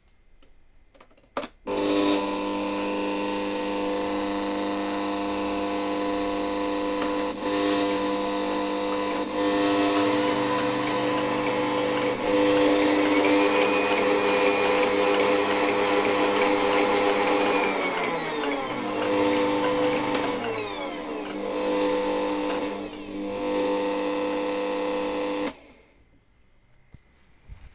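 Bosch stand mixer's motor running with the whisk turning in an empty bowl, a steady whine that starts just after a click. It steps up in speed several times as the side dial is turned, then winds down in falling pitches, wavers through lower speeds, and cuts off about two seconds before the end.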